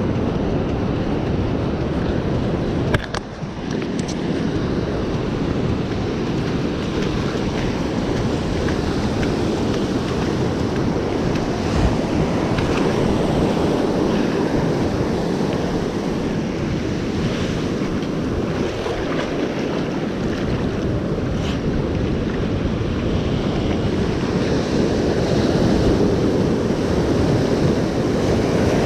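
Ocean surf washing on the beach, with wind buffeting the microphone; a single sharp click about three seconds in.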